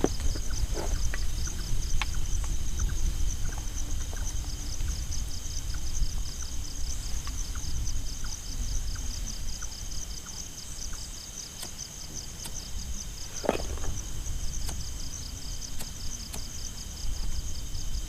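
Strong wind buffeting the microphone, with a steady, evenly pulsing chorus of crickets or cicadas high above it and scattered light clicks.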